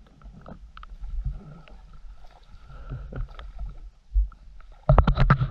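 Handling noise aboard a small fishing boat: scattered light clicks and knocks over a low wind rumble on the microphone, with a faint steady high whine. Near the end comes a burst of loud rattling knocks as the rod and gear on the deck are handled.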